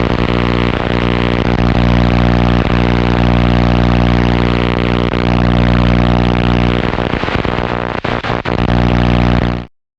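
Electrical short circuit: a loud, steady buzzing hum with crackle over it, which stutters and drops out a few times near the end before cutting off sharply.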